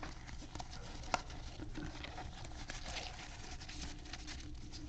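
Trading cards being flipped through and slid against each other in the hands: an irregular run of light clicks and rustles, with one sharper click a little over a second in.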